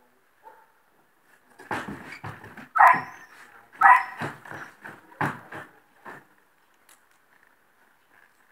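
American Quarter Horse's hooves knocking on the horse trailer's floor and wooden ramp as it steps out under a rider: a run of irregular knocks and thuds from about two to six seconds in, with two loud bark-like calls about three and four seconds in.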